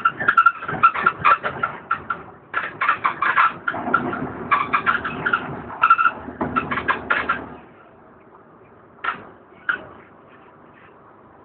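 Inside the upper deck of a DAF DB250LF Alexander ALX400 double-decker bus on the move: fittings rattle and squeak in rapid clicks over the engine's low running note. About seven and a half seconds in this drops away sharply to a low steady hum, broken by two short knocks.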